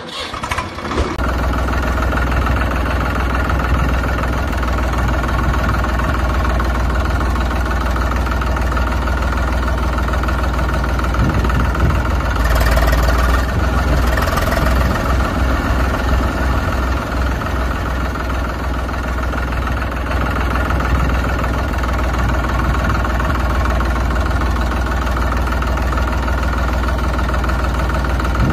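Tractor diesel engine idling steadily, with a brief louder, brighter rise about twelve to fourteen seconds in.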